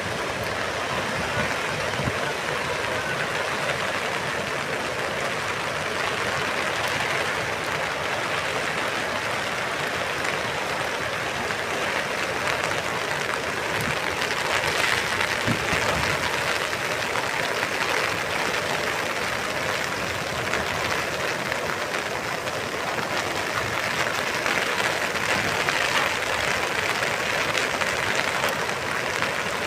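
Floodwater rushing in a steady, dense roar, swelling a little about halfway through and again near the end.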